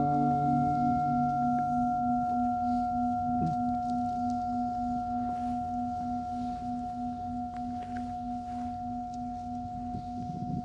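Singing bowl ringing out after a strike, its low tone pulsing several times a second while it slowly fades, with a clear higher tone above. A lower held tone underneath stops about two seconds in.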